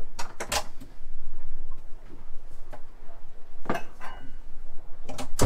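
Sharp clicks and knocks from a wooden cabin door and its catch being handled and swung, a pair about half a second in, another just before four seconds and a loud one at the end, over a steady low hum.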